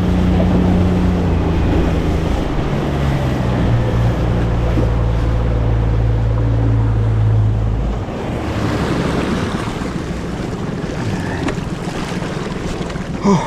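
Small boat's outboard motor running at speed, its pitch stepping down a couple of seconds in as the throttle eases. About two-thirds through, the engine note drops away, leaving the wash of water and wind buffeting the microphone. A brief loud sound comes just before the end.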